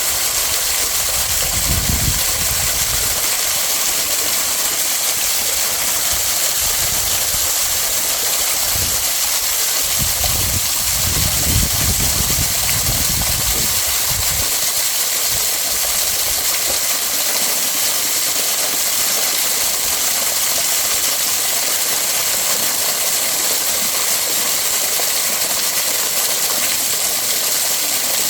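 Waterfall: a steady, loud rush of falling water, heavy in hiss. A low rumble swells briefly about two seconds in and again from about ten to fourteen seconds.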